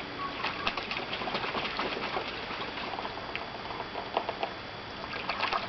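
Geese dabbling and splashing in a water-filled bathtub: a dense, irregular patter of small splashes and bill clicks, busiest in the first two seconds and again near the end.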